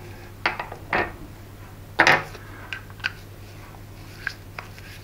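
Small metal clicks and clinks from handling a model glow engine's carburettor body and its small fittings, several separate taps with a louder clink about two seconds in.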